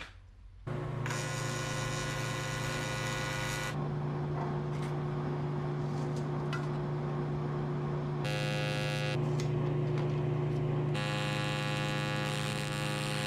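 Miller TIG welder's arc making a steady electrical buzz while welding sheet metal. Its tone changes abruptly several times.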